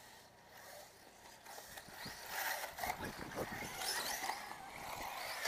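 Electric off-road RC buggies racing: a high-pitched motor whine that rises and falls with tyre and chassis noise, swelling louder about two seconds in as the cars come closer.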